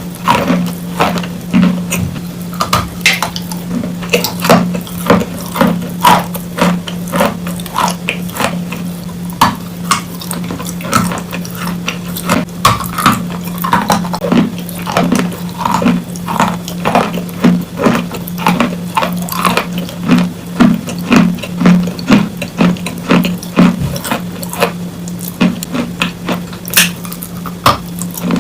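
Wet chalk being bitten and chewed close to the microphone: irregular wet crunches and clicks, several a second, over a steady low hum.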